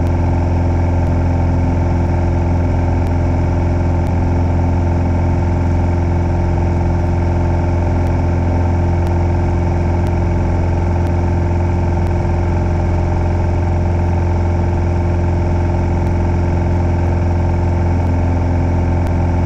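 Light aircraft's carburetted piston engine running steadily under power in the climb, heard from inside the cockpit. Faint clicks about once a second are a fault of the recording.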